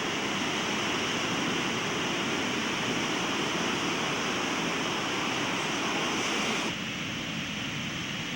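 Rough ocean surf: a steady rush of breaking waves and washing water, which drops in level suddenly near the end.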